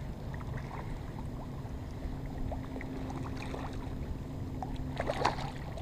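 Water lapping and wind on the microphone, then about five seconds in a hooked speckled trout splashing and thrashing at the surface close by.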